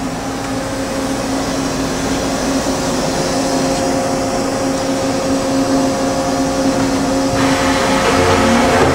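Makino MC-86 CNC horizontal machining center running its cycle with the pallet table turning on the B-axis: a steady mechanical whir with a humming tone. Near the end the sound shifts and a deeper hum comes in.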